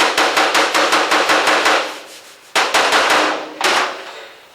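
Body hammer tapping rapidly on a steel car hood panel, about eight light blows a second with the metal ringing under them, knocking down a small dent. The tapping stops about two seconds in, then a brief second run of taps and one last ringing strike follow.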